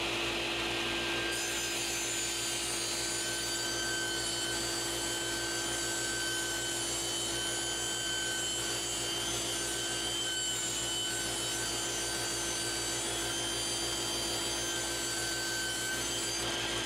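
Table saw with a 24-tooth rip blade running steadily as it rips a hardwood board fed along the fence, a constant cutting noise with a steady whine.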